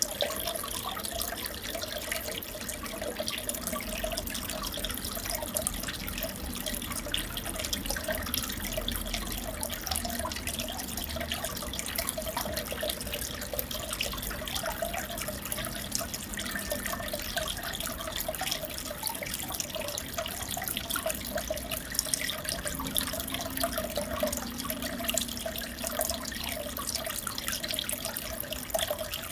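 Aquarium water circulating: a steady trickle and patter of water with many small drips and bubbles.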